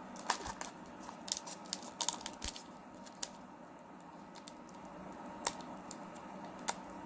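Foil wrapper of a Pokémon booster pack crinkling and being torn open: a run of small crackles and rips, busiest in the first three seconds, then a few scattered ones.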